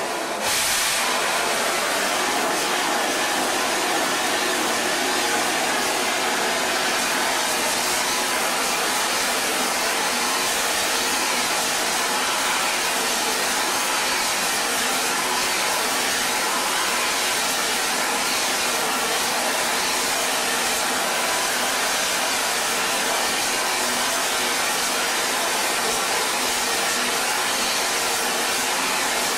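Steady, loud rushing noise of machinery in a vacuum-tube factory, even and unchanging.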